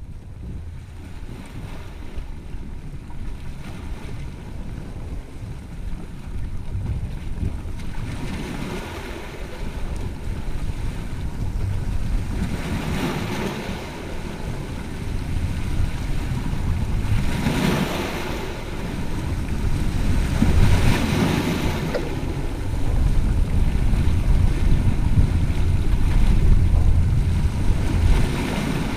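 Sea waves washing against the rocks of a breakwater, with wind buffeting the microphone as a heavy low rumble. Three louder washes of surf come in the middle stretch.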